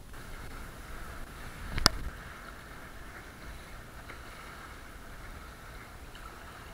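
Choppy sea water washing and slapping against a plastic fishing kayak's hull as it moves, a steady hiss, with one sharp knock about two seconds in.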